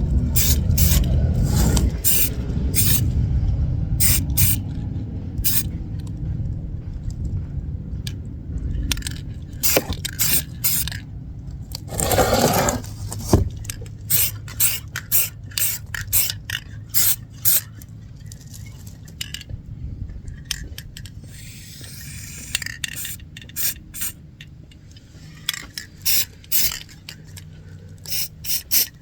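Aerosol spray-paint can sprayed in many short hissing bursts, each well under a second. There is a low rumble in the first few seconds and a louder scuffing noise about twelve seconds in.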